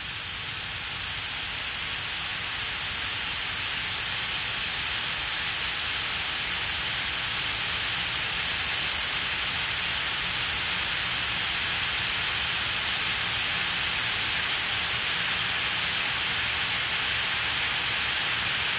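A long white-noise sample played back from a music production program: a steady hiss, brightest in the treble, whose very highest frequencies drop away about three quarters of the way through.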